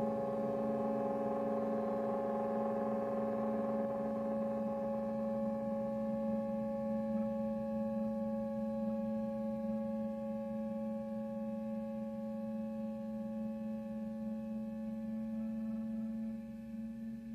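Background music: a slow ambient drone of long, steady held tones that shift slightly near the end.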